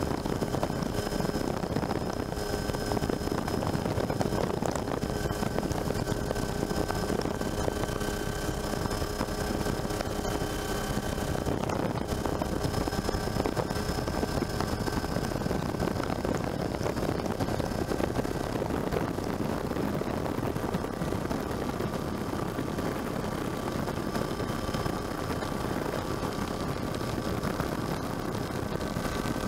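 Helicopter running steadily: a dense, even rotor and engine noise with a faint high whine held at a steady pitch.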